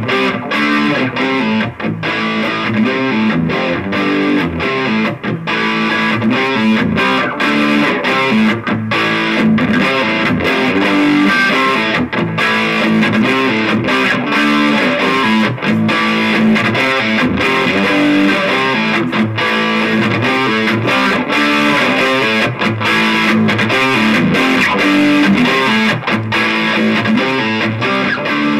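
Electric guitar played through a Shredhead distortion pedal and a cheap amplifier: continuous distorted riffing in a steady rhythm.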